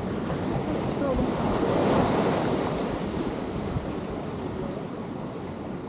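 Ocean surf: a wave washes in along the shore, swelling to its loudest about two seconds in and then easing off, with wind on the microphone.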